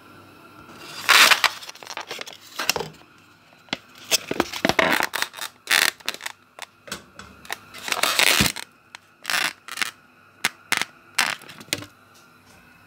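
Close handling noise: irregular rustling and scraping with sharp clicks and knocks, loud and uneven, as the recording phone is carried and things on the counter and stove are handled.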